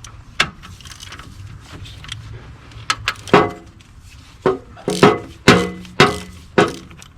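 Metal hand tools clinking and knocking on a diesel engine's cylinder head while its head bolts are loosened: a series of sharp clinks, most of them in the second half, several ringing briefly.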